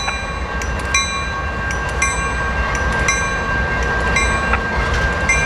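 Canadian National diesel-electric freight locomotives, led by GE C40-8M 2423, rolling slowly past with a continuous low engine rumble and a steady high whine. Sharp ringing metallic clicks from the wheels on the rails come irregularly, about one or two a second.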